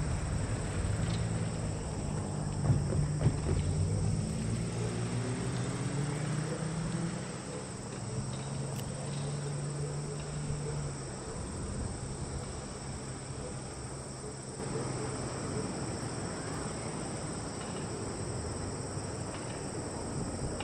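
Crickets chirping in a steady high-pitched chorus over the low hum of a road vehicle's engine. The engine rises in pitch a few seconds in and fades away about halfway through.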